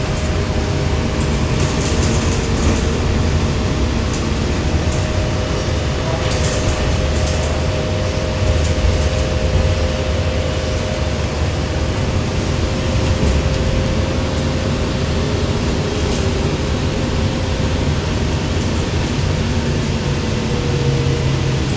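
Cabin noise of a moving 2020 Gillig BRT 40-foot transit bus: a steady low engine and road rumble with a steady whine running through it and light rattles. The whine dips slightly in pitch near the end.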